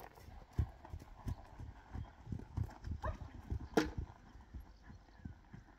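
Pony's hooves thudding on a sand arena surface, about three dull beats a second, with one louder, sharper sound a little before four seconds in.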